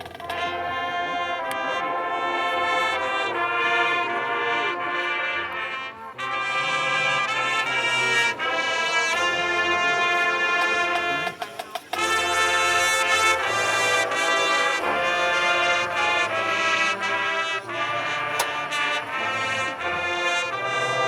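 Marching band brass section playing the school alma mater in slow, sustained chords, with short breaks between phrases about 6 and 12 seconds in.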